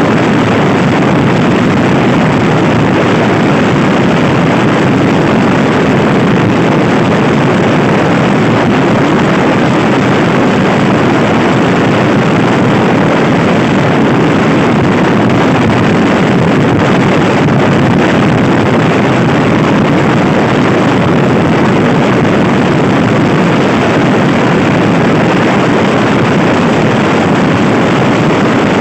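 Loud, steady wind noise buffeting the microphone of a Honda Scoopy-i scooter being ridden hard at speed, covering most of the engine sound.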